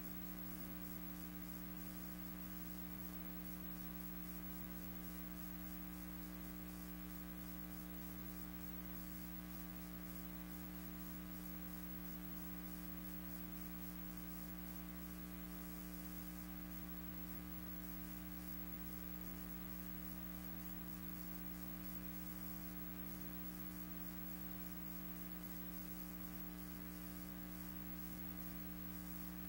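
Steady electrical hum with a constant hiss and nothing else: no sound from the pictured scene is heard.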